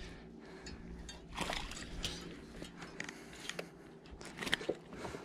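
Scattered light clicks, scrapes and knocks of fishing gear being handled on a boat deck, over a faint steady hum.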